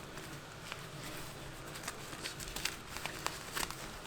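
Handling noise of a neoprene glove being opened up: scattered soft clicks and rustles, coming more often in the second half.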